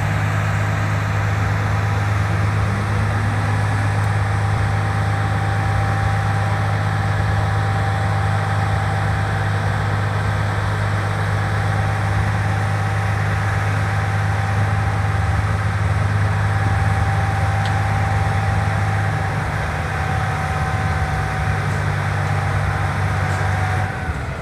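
Large mining dump truck's diesel engine running steadily with a low hum while its raised dump body is lowered, the sound easing and dropping near the end.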